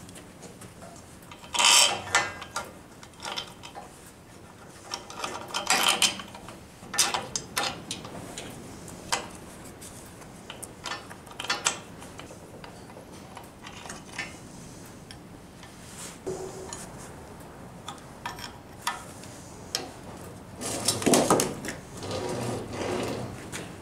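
Steel parts clinking and knocking as a bolted bearing bracket of steel plates, threaded rod and nuts is handled and assembled. The clinks come irregularly, the loudest about two seconds in, with a busier cluster of knocks near the end.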